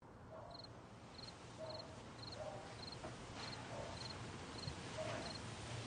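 Crickets chirping at night, short pulsed chirps repeating evenly nearly twice a second, over a faint steady low hum. A few lower calls come in now and then.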